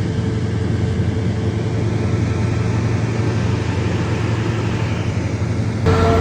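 Engine of heavy concrete-pouring machinery running steadily with a low hum and a held mid tone; near the end it gets a little louder and a higher whine comes in.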